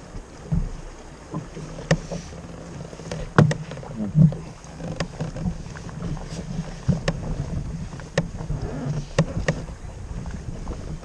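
Sounds aboard a kayak on the water: a low steady rumble with a dozen or so irregular sharp knocks and slaps against the hull, the loudest a few seconds in.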